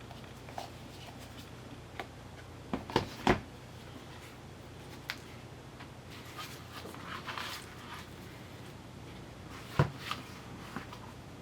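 K-pop album packaging being handled: a few sharp clicks and knocks of cardboard and plastic, loudest in a cluster about three seconds in and once near the end, with a stretch of soft rustling in between.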